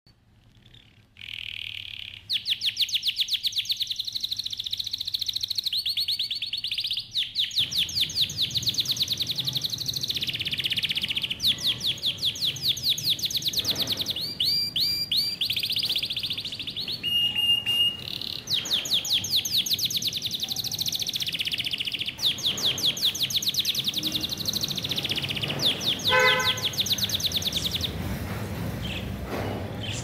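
Budgerigars chirping and chattering without a break in rapid trills of high notes, with a short steady whistle about halfway through.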